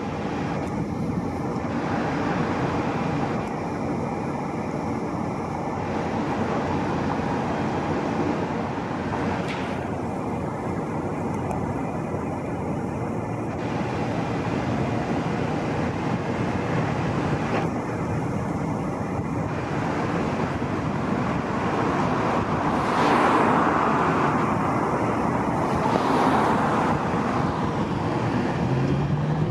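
Steady road traffic noise from passing cars. About three quarters of the way through, a louder swell as a vehicle passes closer.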